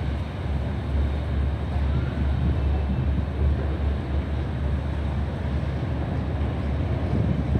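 Steady low rumble of a high-speed catamaran ferry's engines as it manoeuvres, churning up wash, with wind buffeting the microphone.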